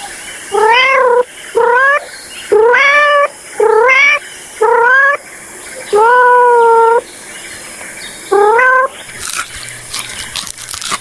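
Cat meowing seven times, each meow rising in pitch and the sixth held longer and steadier, followed near the end by a quick run of clicks.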